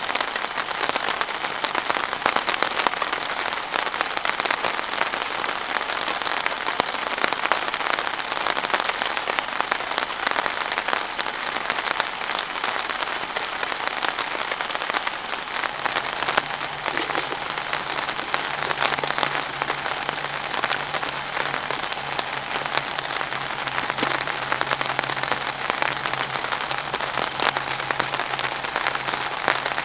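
Steady rain pattering on the tent overhead, a dense even patter of many small drops. A low steady hum comes in about halfway through.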